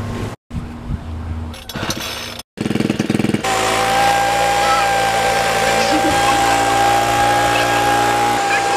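Small gasoline engine running steadily at a constant speed with a high, even whine. It cuts in loud about three and a half seconds in, after a few seconds of choppy, broken sound.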